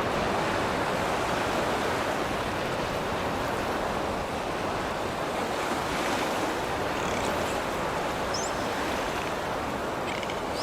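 Ocean surf washing onto a beach, a steady rush of water, with a few faint short high chirps in the second half.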